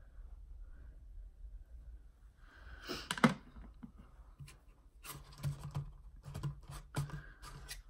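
Handling of makeup items: a knock about three seconds in, then a quick run of sharp clicks and rubbing.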